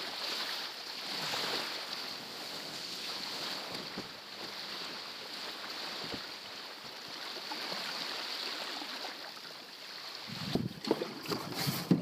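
Small waves washing onto a gravel beach: a steady hiss that slowly swells and ebbs. About two seconds before the end, louder rumbling gusts and a few knocks come in.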